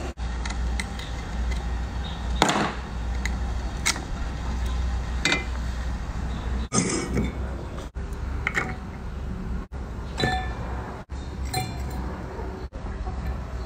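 Metal utensils clinking and tapping against stainless steel bowls and a steel pot, in short separate bits, over a steady low hum.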